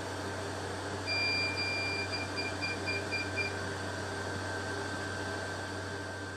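IPL/SHR hair-removal machine in SHR mode beeping as the handpiece fires: one longer high beep about a second in, then quick short beeps, about four a second, for a couple of seconds. The machine's steady hum runs underneath.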